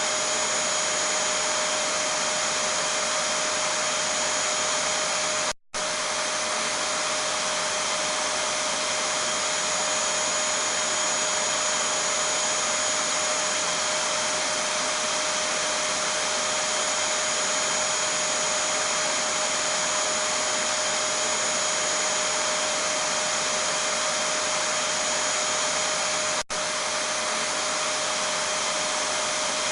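Vacuum cleaner running steadily: a constant rushing motor noise with a steady hum and a high whine. The sound cuts out for a moment about five seconds in and dips briefly again near the end.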